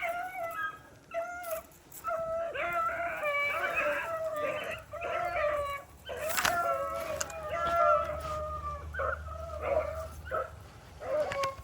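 A pack of rabbit hounds baying and howling as they run a rabbit's trail, several dogs giving tongue at once in long, wavering calls. A single sharp snap sounds about six seconds in.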